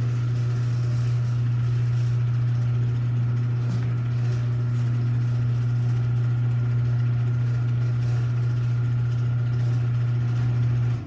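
A loud, perfectly steady machine hum that holds one pitch throughout and cuts off suddenly at the end.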